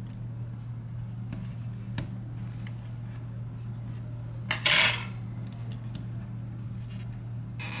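Scattered small clicks and taps of metal tweezers and fingers on a smartphone's frame and battery during disassembly, with one brief louder scrape a little past halfway. A steady low hum runs underneath.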